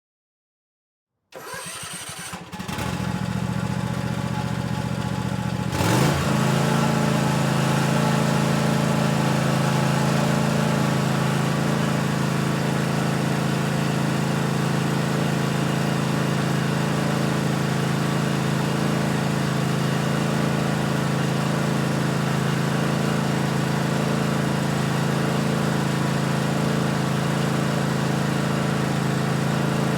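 Small lawn mower engine starting: after a moment of silence it catches with a short rough sputter, runs at a lower speed for a few seconds, then rises in pitch about six seconds in and settles into steady running.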